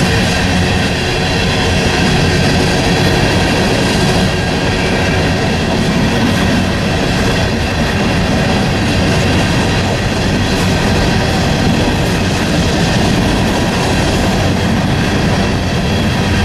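Freight train cars rolling past, a steady loud rumble of wheels on rail with some clickety-clack over the joints.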